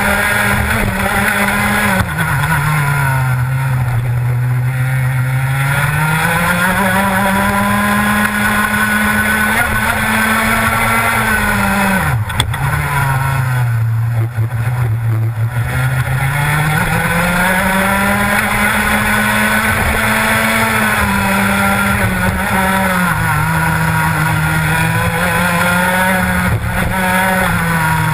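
Rotax Max 125cc two-stroke kart engine at racing revs, heard from on board the kart. Its pitch drops sharply twice, about two and twelve seconds in, as the kart slows for corners, then climbs steadily back as it accelerates out, with a smaller dip near the end.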